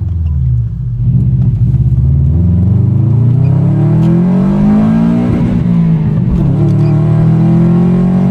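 Straight-piped Subaru Impreza WRX's turbocharged flat-four engine revving under acceleration. The revs dip briefly in the first second, climb to a peak about halfway through, fall away, then climb again near the end.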